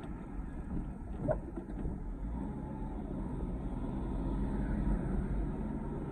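Steady low rumble of a car's engine and tyres on the road, heard from inside the moving car, with a brief knock about a second in.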